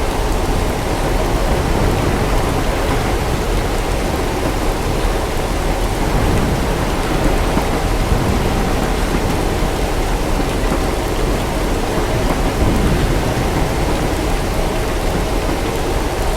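Steady rain with a low rumble of distant thunder underneath.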